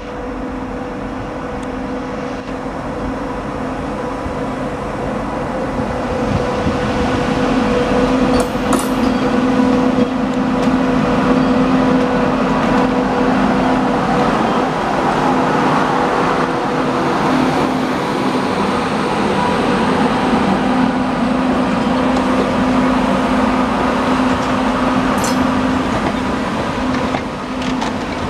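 Indian Railways WAP-7 electric locomotive hauling passenger coaches, approaching and passing: a steady electric hum over the rumble of wheels on rails, growing louder over the first ten seconds or so and staying loud as the coaches roll by.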